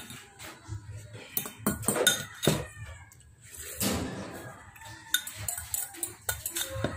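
Metal spoon scraping and clinking against a ceramic bowl while eating, a scattered run of sharp clicks with the loudest a couple of seconds in.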